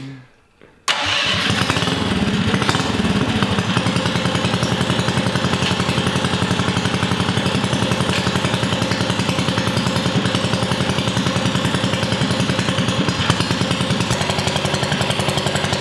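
Built Tillotson 212 single-cylinder four-stroke engine, with a hot cam and a side-exit header and muffler, catching about a second in and running steadily with a rapid even firing beat, its note shifting briefly soon after it starts and again near the end.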